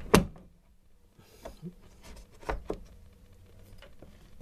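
Sharp knocks and clicks of hands handling plastic and metal parts around an LG dryer's drive motor: one loud knock just after the start, then softer clicks and two knocks close together about halfway through.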